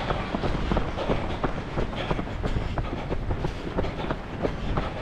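Runners' footsteps on a road: rhythmic footfalls about three a second over a steady low rumble.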